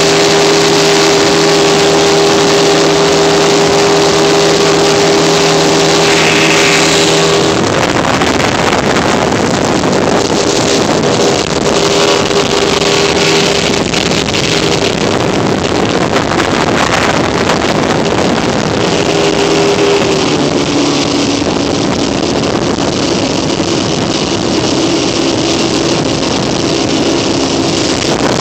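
Motorboat engine running steadily while under way, with wind and rushing water. About a quarter of the way in the steady engine note gives way to a rushing wind-and-water noise, and a lower engine note comes back for the last third.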